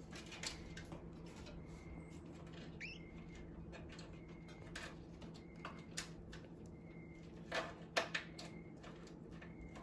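Quiet room with a steady low hum, scattered light clicks and knocks, the loudest two close together about eight seconds in, and one brief rising squeak about three seconds in.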